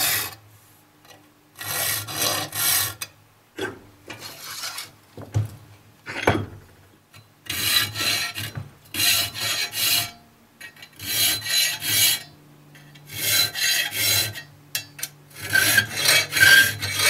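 A 7/32-inch round file rasping across the teeth of a steel pole-saw blade held in a vise, sharpening the teeth one at a time. Bursts of quick strokes about a second long, with short pauses between teeth.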